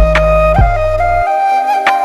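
Background music: a held melody line that steps between notes, over deep bass notes and drum hits.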